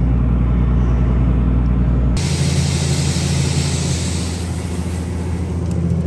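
John Deere combine running steadily with a deep, even hum. About two seconds in the sound changes abruptly: the lowest hum drops away and a hiss comes in, fading out over the next couple of seconds.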